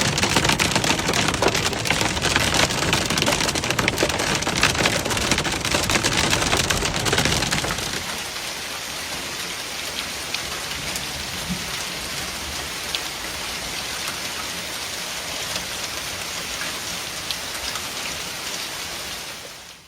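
A storm downpour pelting down in a dense clatter of hard impacts, typical of hail mixed with rain. About eight seconds in, it changes abruptly to a quieter, steadier rain hiss.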